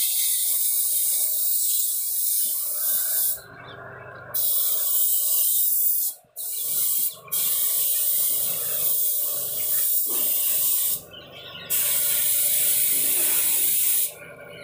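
Spray gun hissing as it sprays a water, diesel and oil mix over a groundnut thresher's metal body, in bursts of a few seconds that stop and start several times and cut off shortly before the end.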